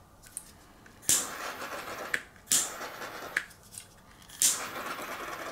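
Small handheld torch fired in three short hissing bursts, each about a second long, passed over fresh epoxy resin on acrylic keychains to clear bubbles from the surface.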